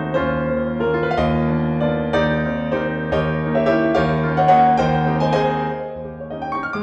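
Background piano music: a gentle melody of sustained notes over a steady bass.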